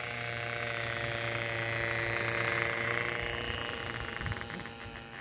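Model aeroplane's small engine buzzing steadily in flight, growing louder to about halfway through and then fading as it passes.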